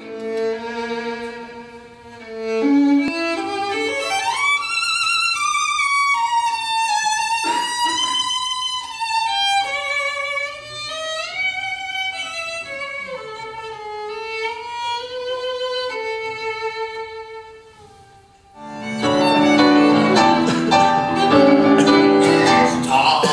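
Solo violin playing a slow melody with vibrato and sliding notes. After a brief dip about 18 seconds in, the music turns louder and fuller, with struck chords as the piano joins the violin.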